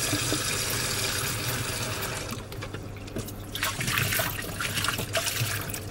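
Kitchen tap water running into a plastic washing-up bowl held in a stainless steel sink, the steady pour stopping about two seconds in; the water is then swirled and sloshed around the bowl and tipped out into the sink in irregular splashes.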